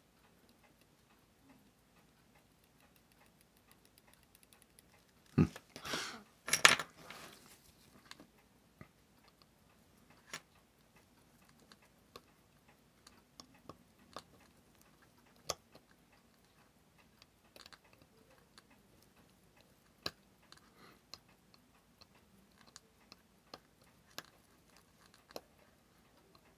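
Small sharp clicks and ticks of steel tweezers and tiny watch-movement parts being handled, scattered every second or two. A louder cluster of knocks and rustles comes about five to seven seconds in.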